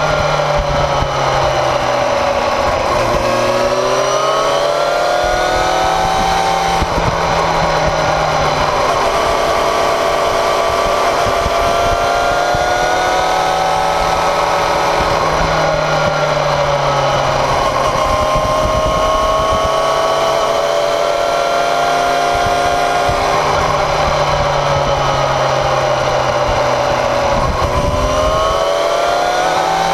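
Motorcycle engine and exhaust running under way, heard close to the rear wheel and muffler, its pitch rising and falling several times as the bike speeds up and slows. Underneath runs a steady rush of tyre and wind noise.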